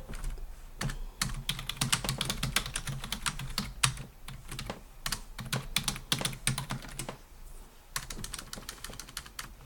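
Typing on a computer keyboard: a fast run of keystroke clicks, easing off briefly about seven seconds in and then picking up again.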